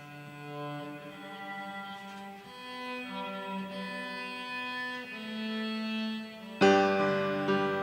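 Cello playing a slow hymn melody in long held notes with piano accompaniment; a loud piano chord is struck near the end.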